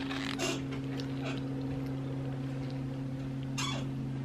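A steady low hum holding one pitch, like a motor running, with a few brief crackles over it.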